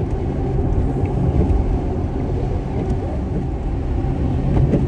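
Steady road and tyre rumble heard from inside a car cruising on a snowy, slushy highway.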